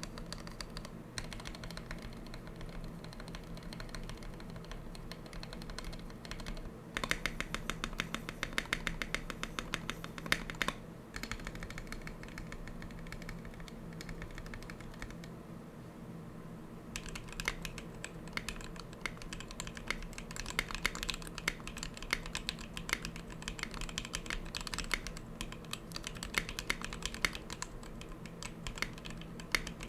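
Typing on a TKC Portico mechanical keyboard fitted with TKC Tangerine linear switches (67 g springs, lubed with Krytox 205g0) and XDA-profile keycaps: a continuous patter of key clacks. The typing is fastest about a quarter of the way through and thins out briefly past the middle.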